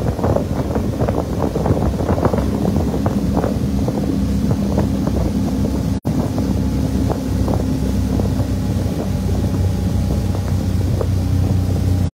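Outboard motor on a small boat running steadily at speed, a low drone under rushing water and wind buffeting the microphone. Choppy splashing is dense in the first half and thins out later. The sound cuts out for an instant about halfway.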